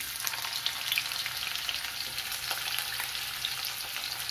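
Chopped onions frying in hot oil with cumin seeds in a kadhai: a dense, steady sizzle full of fine crackles that starts abruptly the moment the onions hit the oil.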